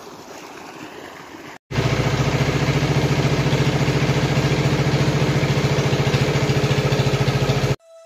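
Small stationary single-cylinder engine with a belt drive, running steadily with a fast, even beat and a strong low hum. It starts abruptly about a second and a half in, after a quieter stretch of outdoor hiss, and cuts off suddenly just before the end.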